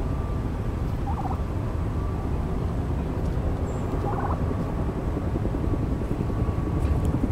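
Wind buffeting the microphone, a steady low rumble. Two short warbling calls come through it, about a second in and again about four seconds in.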